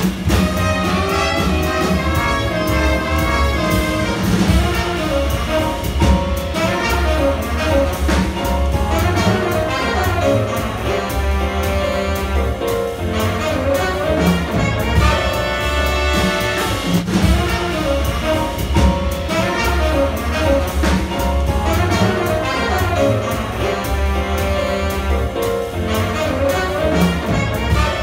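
Small jazz ensemble playing: saxophones, trumpet and trombone over double bass, piano and drum kit.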